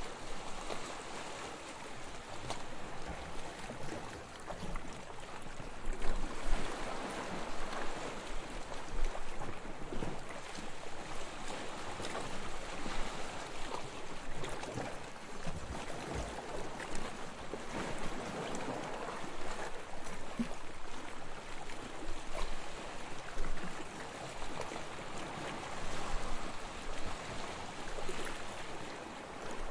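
Gentle waves washing onto a beach: a steady wash of water that swells and eases every few seconds.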